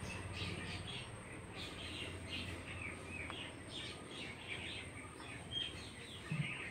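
Birds chirping in the background: a steady run of short, high chirps over a faint low hum.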